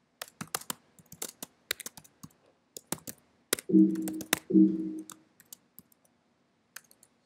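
Typing on a laptop keyboard: irregular, quick keystroke clicks. About halfway through, two short low tones sound about a second apart, louder than the typing.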